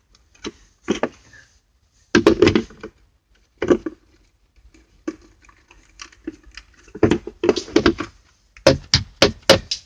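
Plastic cabin air filter tray knocking and clicking as it is worked back into its housing: irregular clusters of short clattering knocks with pauses between them.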